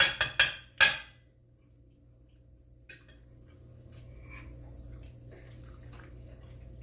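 Cutlery clinking against a dinner plate during a meal: a quick run of sharp clinks at the start, one louder clink just under a second in, then fainter scattered clinks and scrapes.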